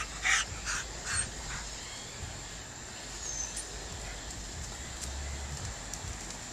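Dog barking: a few short barks in quick succession at the start, then quieter.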